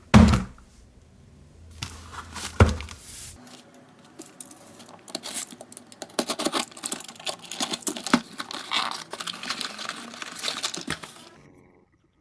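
Hot Wheels toy car blister pack being torn open: plastic crinkling and card tearing. Two sharp thumps come in the first three seconds, then a dense run of crinkling and tearing lasts about seven seconds before it stops.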